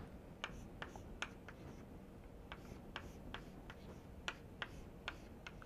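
Chalk writing on a blackboard: faint, irregular taps and clicks as the chalk strikes and lifts off the board, about a dozen sharp ticks.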